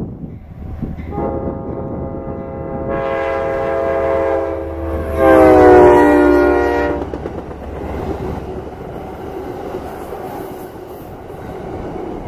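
Amtrak Genesis diesel locomotive's multi-chime air horn blowing a long blast as the train approaches, loudest about five seconds in, where the chord drops in pitch as the locomotive passes, then cutting off about two seconds later. The passenger coaches then roll past with a steady rumble and wheel clatter on the rails.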